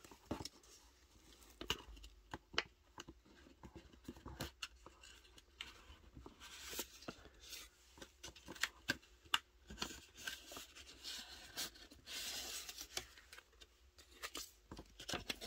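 Fingers handling a cardboard box and sliding instant photo prints out of a cardboard pocket: scattered scrapes, rustles and small clicks of paper and cardboard.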